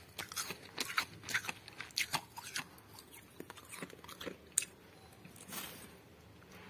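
Soft, dry freezer frost crunching in a run of irregular crisp crunches. There is a sharper click a little after halfway, and only faint crunches near the end.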